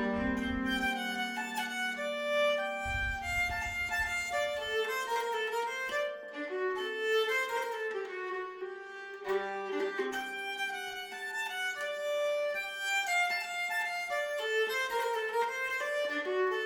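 Background music led by a fiddle or violin playing a lively melody, with plucked strings underneath.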